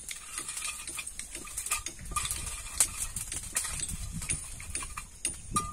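Irregular small knocks, clicks and scraping as a silicone handle is worked by hand into a sledgehammer head.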